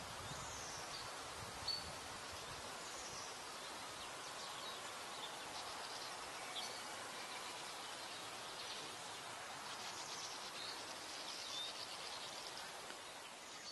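Woodland ambience: a steady background hiss with faint, scattered birdsong, short high chirps and calls coming every second or two.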